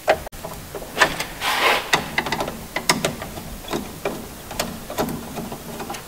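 Wire strippers cutting and stripping heavy electrical wire: irregular sharp clicks and snips, with a longer rasping scrape of insulation about one to two seconds in.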